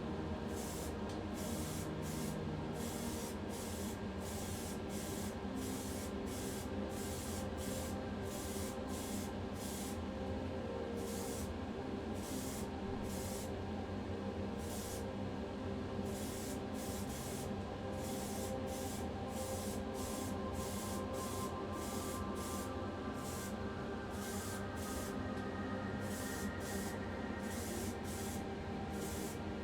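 Primer being sprayed onto a die-cast model car body in a rapid series of short hissing bursts, about two to three a second, over a steady low hum.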